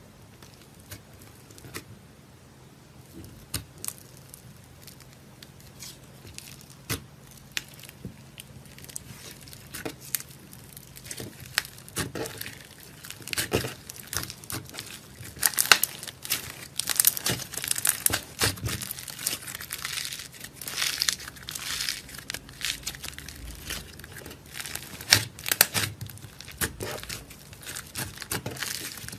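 Clay slime being pressed and kneaded by hand, making crackles, pops and tearing sounds. Sparse at first, the crackling grows denser and louder about halfway through as the purple clay is worked into the white slime.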